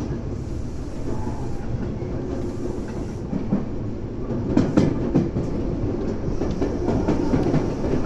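Running sound of a Tobu 9050 series electric train, heard from inside the car: a steady low rumble of wheels on rail. Wheels clack over rail joints, a cluster of clacks about halfway through.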